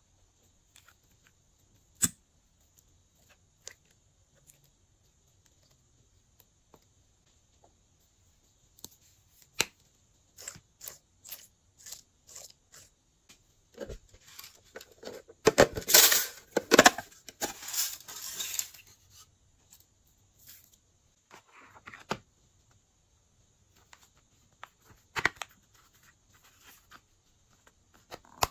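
Hands handling small plastic slime containers and add-in bottles: scattered clicks and taps, with a dense stretch of crackling and crinkling about halfway through.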